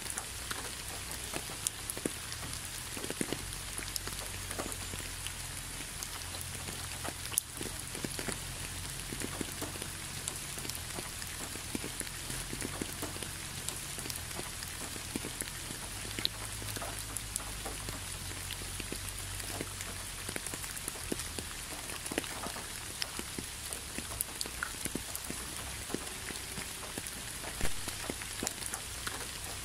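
Gentle rain falling on concrete: a steady patter with scattered louder single drops, over a faint low rumble.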